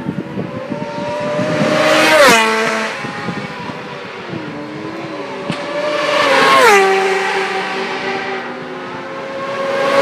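Solo racing motorcycles passing one at a time at full speed, each engine note swelling and then dropping sharply in pitch as the bike goes by. The first passes about two seconds in, a second about four seconds later, and a third arrives near the end, with fainter engine noise from other bikes in between.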